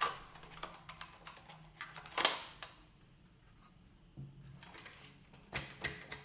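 Light plastic clicks and knocks from handling a toy RC truck: the battery pack being pushed into its compartment under the hood, one louder knock about two seconds in, and a few more clicks near the end as the truck is turned on the table.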